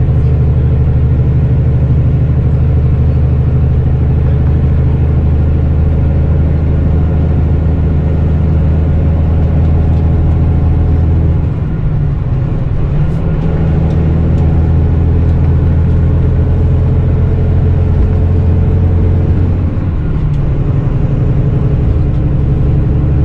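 Interior sound of a Volvo B9R coach at cruising speed: its rear-mounted six-cylinder diesel engine running steadily under load, with road and tyre noise. The engine note and level dip briefly about halfway through and again near the end.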